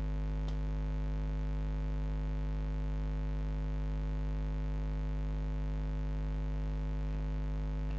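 Steady electrical mains hum with a buzzy stack of overtones, picked up in the recording's audio chain; a faint click about half a second in.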